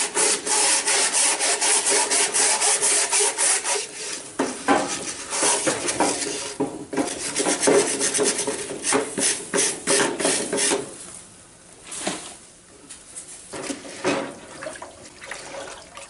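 Wire brush scrubbing softened wax off a beehive frame's plastic foundation in quick back-and-forth rasping strokes. The strokes stop about eleven seconds in, with only a few single scrapes after.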